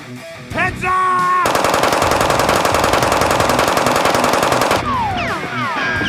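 Dubbed-in machine-gun fire: one continuous, very rapid burst of about three seconds, after a short rising tone and followed by several falling whistling tones, over background music.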